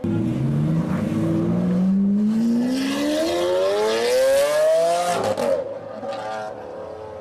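Lamborghini Aventador's V12 engine revving hard under full acceleration, its pitch climbing steadily for about five seconds. It then cuts off abruptly with a few short crackles and settles to a lower running note.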